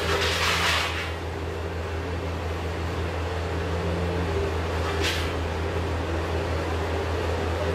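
Vehicle engine idling with a steady low hum, with brief hissing noises near the start and about five seconds in.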